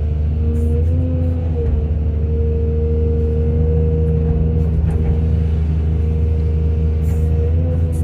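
Excavator's heavy diesel engine running steadily under work, with a deep hum and a high steady tone that rises briefly about a second in and again near the end.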